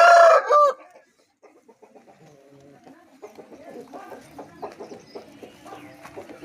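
Aseel chickens: the loud tail of a rooster's crow cuts off under a second in, followed by soft, irregular clucking.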